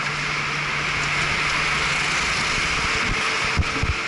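Go-kart running noise heard from on board: a steady low hum under a dense rushing noise, the hum fading about halfway through, then two low thumps near the end.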